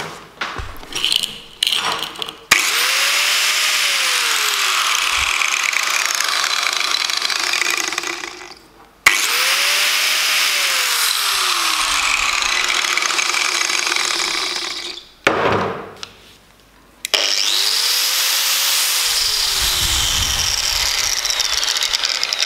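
A 900-watt angle grinder running free in the hand, switched on three times for about six seconds each. Each run starts abruptly at full speed with a high, steady whine, then winds down when released.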